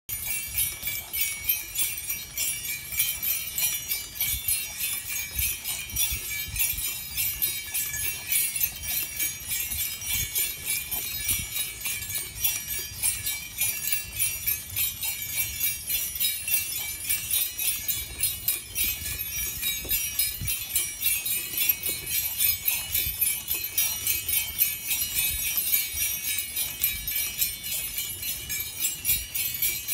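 Small jingle bells on an animal's harness jingling continuously, swelling in an even rhythm with each step.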